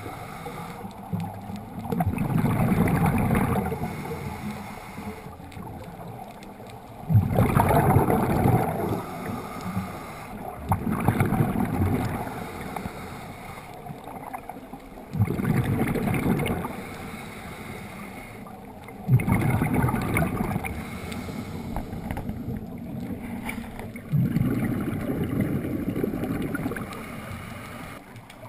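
Scuba diver breathing through a regulator, heard underwater: a loud rush of exhaled bubbles about every four seconds, with quieter stretches between breaths.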